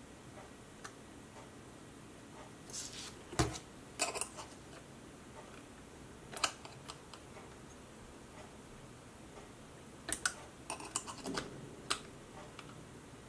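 Scattered light clicks and taps of small parts and tools being handled on a work surface: a few around three to four seconds in, one near the middle, and a quick run of them near the end.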